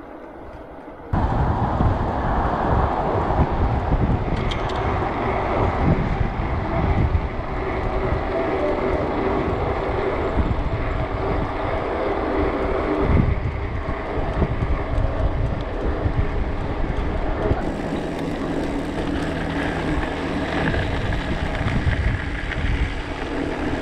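Wind buffeting a moving action camera's microphone, loud and gusty, starting suddenly about a second in.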